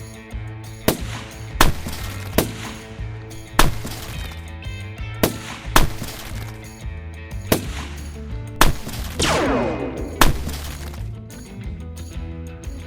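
Background music with a steady beat, cut through by about nine sharp bangs at uneven intervals. About nine seconds in there is a smash with a ringing that falls in pitch, like glass breaking.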